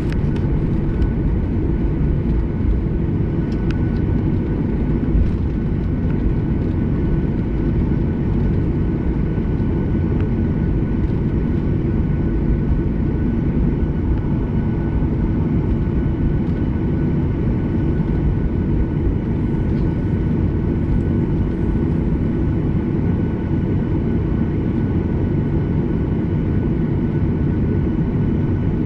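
Boeing 737-800's CFM56-7B turbofan engines running steadily at low thrust while the plane taxis, heard inside the cabin at a window seat: a deep, even rumble with a faint steady whine over it.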